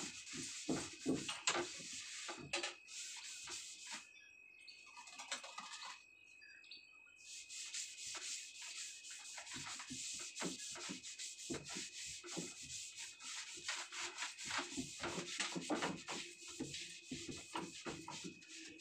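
Wooden kitchen shelves being scrubbed by hand in quick back-and-forth rubbing strokes, which ease off for a few seconds about four seconds in and then carry on steadily.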